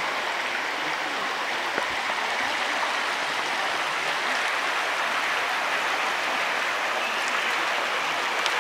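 Floodwater flowing over a paved street: a steady, even wash of running water.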